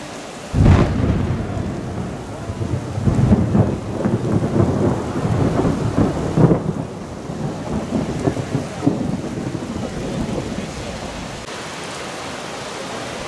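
A thunderclap about half a second in, rolling on as a low rumble with louder swells for about ten seconds, over heavy rain and hail. The rain's steady hiss is left alone near the end.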